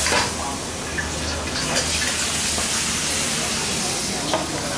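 Lobster sizzling and steaming in a wok over a gas wok burner, whose steady low rush runs beneath, with a few sharp knocks of the metal ladle against the wok.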